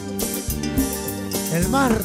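Live cumbia band playing an instrumental passage with a steady percussion beat and sustained chords; a voice calls out briefly near the end.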